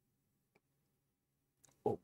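Near silence: quiet room tone with one faint click about half a second in. A man's voice starts up right at the end.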